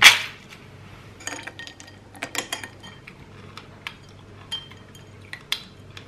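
Ice cubes and a spoon clinking against a glass bowl of fruit: one sharp crack right at the start, then scattered light clinks and taps.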